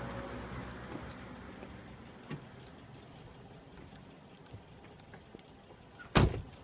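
A car door slams shut near the end, the loudest sound, with a smaller knock just after it. Before that come scattered light clicks and a jingle of keys, over a low hum that fades in the first second or so.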